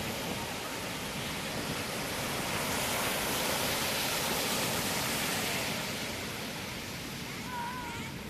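Ocean surf rushing in waves, a steady wash of noise that swells a few seconds in and then eases back. A short wavering call sounds near the end.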